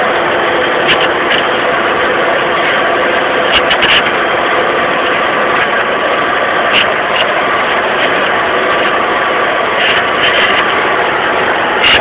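John Deere tractor's diesel engine running steadily at full power under the load of pulling a plough, with a few short sharp clicks scattered through it.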